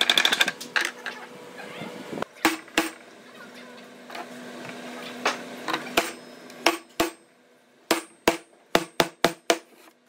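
Scattered sharp knocks of hand tools and wooden boards on a workbench, ending in a quick run of about eight taps over a second and a half near the end, with a faint steady hum in the middle.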